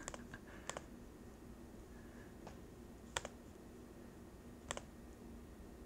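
A handful of faint, widely spaced clicks of a computer mouse button, over a faint steady hum.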